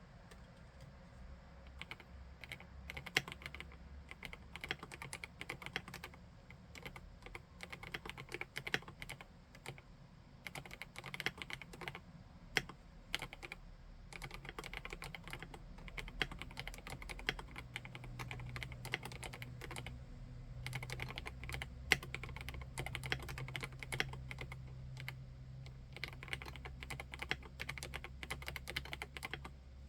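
Typing on a PK x BIOI Command 65 custom 65% mechanical keyboard fitted with SP-Star RedBlue switches. Rapid runs of keystrokes with short pauses start about a second and a half in.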